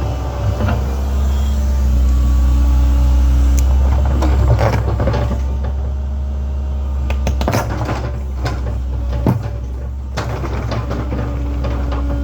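Link-Belt 2700 excavator working: its diesel engine drones steadily while a higher steady whine comes and goes, and the bucket scrapes and clanks in soil and rock several times, most around four to five seconds in and again from about seven to ten seconds.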